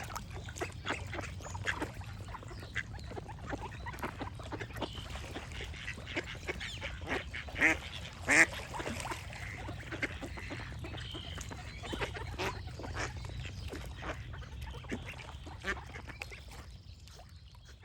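Ducks quacking in quick, repeated short calls, the loudest just past the middle, with a few small bird chirps over a steady low rumble. It all fades out near the end.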